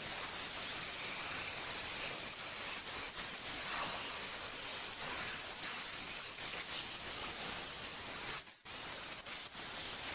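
Large angle grinder with a cut-off wheel cutting through metal frame stock: a steady hiss that briefly drops out a little past eight seconds in.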